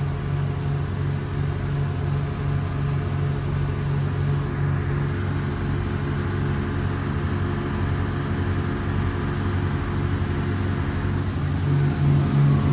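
Twin Volvo Penta KAD300 six-cylinder diesel sterndrives running steadily at cruise, about 3000 RPM with the boat on the plane, together with the rush of water along the hull. The drone grows a little louder near the end.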